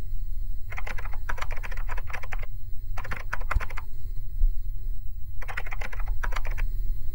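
Computer keyboard typing in three quick runs of keystrokes with short pauses between, one run for each line of on-screen text, over a steady low hum.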